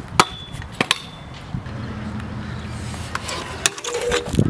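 Stunt scooter wheels and deck clacking sharply against a concrete ledge with a metal edge, one hit ringing briefly. Between them comes a steady low rumble of wheels rolling or grinding along for about a second and a half, then more clacks near the end.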